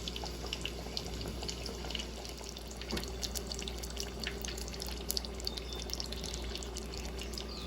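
Breaded chicken katsu cutlets frying in hot oil: a steady sizzle with irregular small crackles and pops.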